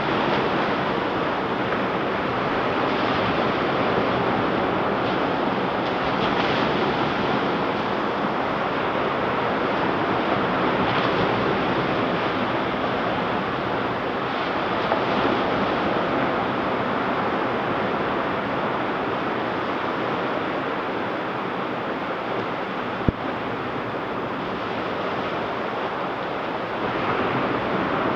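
Ocean surf washing onto a beach: a steady rush of breaking waves that swells and eases every few seconds, with a single sharp click late on.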